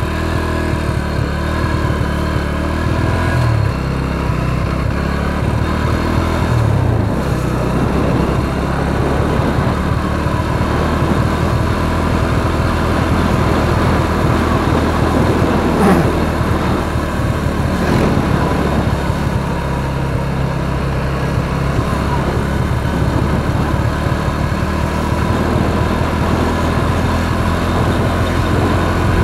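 Motorcycle engine running steadily while riding along a road, with wind and road noise on the mounted camera's microphone.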